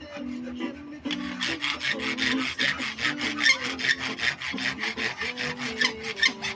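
Hand file rasping on a bolo blade in rapid back-and-forth strokes, several a second, starting about a second and a half in.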